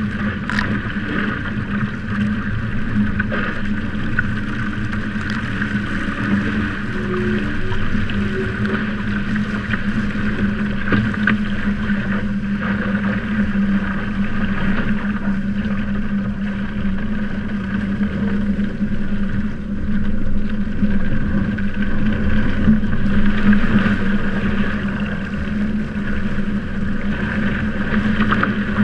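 Windrider Rave hydrofoil trimaran under sail: water rushing past the hulls and wind on the microphone, with a steady low hum throughout.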